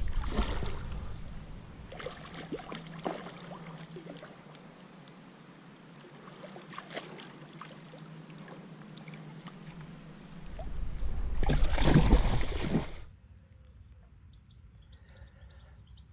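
Hooked common carp splashing and thrashing at the surface as it is played toward a landing net, with bursts of low rumble on the microphone at the start and again near the end. About three seconds before the end the sound cuts off suddenly to a quiet background with faint bird chirps.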